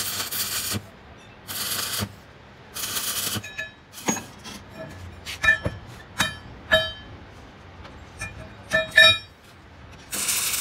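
Stick-welding arc crackling and hissing on a steel pinion gear in three short bursts. Then a run of sharp metal clinks, each leaving a brief ringing tone, as the hard steel gear parts knock together. The arc strikes up and crackles again near the end.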